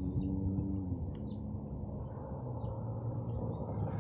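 Low steady rumble with a few humming tones that step down in pitch about a second in, and small birds chirping faintly over it.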